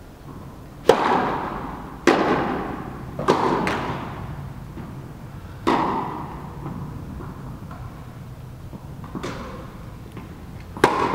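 Tennis balls struck by rackets during a rally, about six sharp hits spaced one to three seconds apart, each ringing out in a long echo through the indoor tennis hall.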